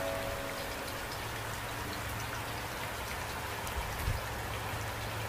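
Steady rain falling, with scattered single drops heard as light clicks over a low steady hum, and a soft thump about four seconds in.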